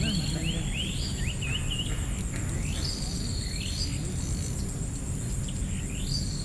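Birds calling: a run of quick sweeping chirps in the first two seconds, then a few longer calls spaced a second or two apart, over a steady high-pitched insect drone.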